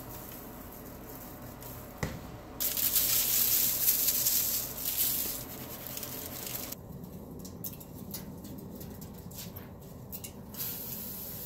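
Salt being sprinkled over a raw duck on a foil-lined tray: a hissing patter of grains for about three seconds starting a couple of seconds in, with light handling of the skin by gloved hands around it.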